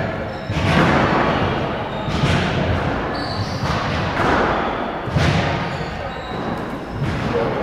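Squash rally: the ball cracking off rackets and walls, a sharp knock every one to one and a half seconds, each echoing briefly around the glass-backed court.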